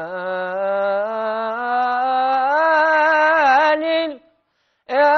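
Male voice singing an Arabic mawwal, drawing out the 'ya layl' syllables in long held notes that climb in pitch step by step, with an ornamental wavering near the top. The phrase breaks off about four seconds in, and after a short pause a new held note begins.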